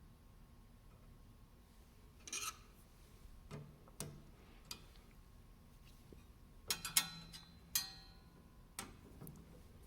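Scattered metallic clinks and taps from wrenches and steel parts being handled while a table saw's riving knife is adjusted and tightened, with a quick cluster of clinks about two-thirds of the way through and one that rings briefly.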